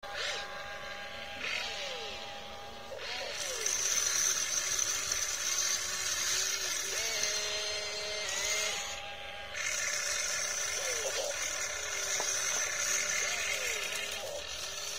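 Electric motors of a radio-controlled tracked excavator whining as the boom, arm and bucket move, stopping and starting with each movement and sliding up and down in pitch.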